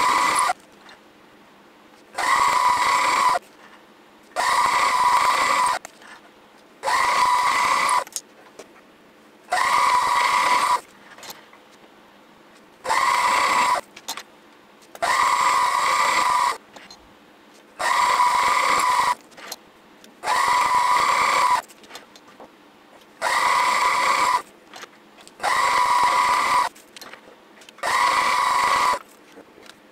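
Twist drill in a milling machine cutting holes through 10 mm mild steel plate, in a run of about a dozen evenly spaced bursts of roughly a second each, one per hole. Each burst holds a steady pitch.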